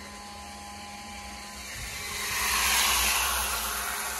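Pumped rainwater pouring from a garden hose into a plastic barrel, a steady rushing splash that swells louder a little past halfway through.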